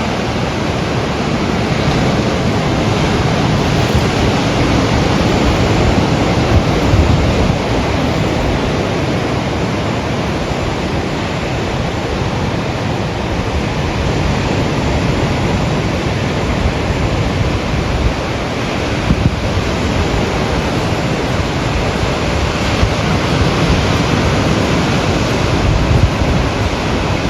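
Surf breaking on a beach, with wind buffeting the microphone: a loud, steady rush of noise.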